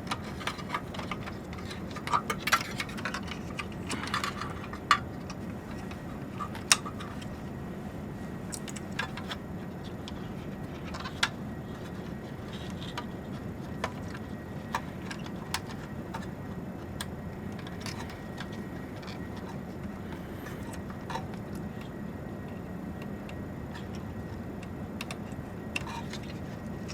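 Scattered small clicks and light rattles of cable connectors being handled and seated inside an open server chassis, busiest in the first few seconds and sparser later, over a steady low hum.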